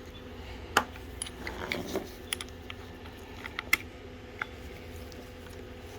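Scattered light clicks and clinks of small metal tools being handled: a hex bit being picked up and fitted into a cordless electric screwdriver. The loudest click comes about a second in.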